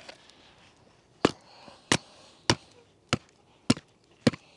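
Six sharp knocks, starting about a second in and coming a little under two a second, as a chunk of log is banged down onto the back of a survival shovel's axe head wedged in a small log, batoning the blade down through the wood.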